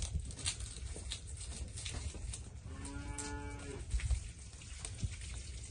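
A cow moos once in the middle, a steady call of about a second. Scattered light clicks and crackles run under it.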